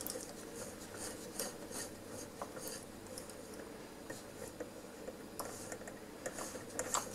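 Quiet rubbing and scattered light clicks of hands handling a valve radio chassis at its freshly oiled dial-cord drive.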